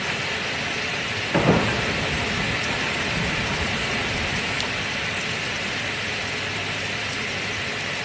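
Steady heavy rain, with a sudden clap of thunder about a second and a half in that rumbles away over the next couple of seconds.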